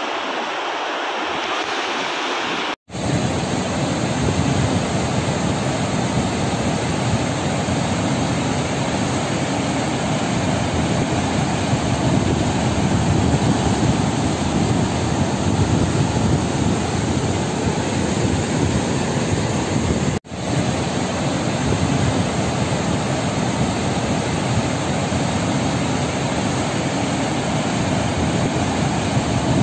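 River water pouring over a weir and churning below it: a loud, steady rushing that cuts out for an instant twice, about 3 seconds in and about 20 seconds in.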